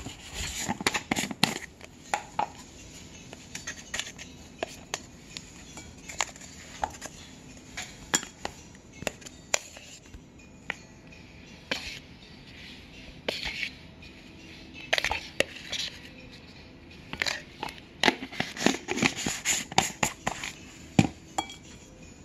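A plastic measuring cup scooping cornstarch from its canister and tipping it into a ceramic bowl of flour: scattered light taps, clicks and scrapes, with busier bursts of scraping about 15 seconds in and again near the end.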